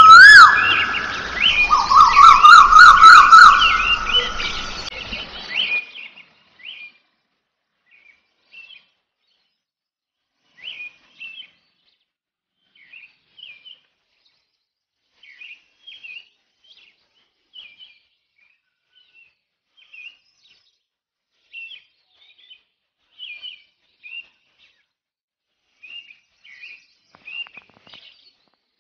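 Background music with a wavering, sliding melody runs for about the first six seconds and then stops; after it, small birds chirp in short, scattered calls.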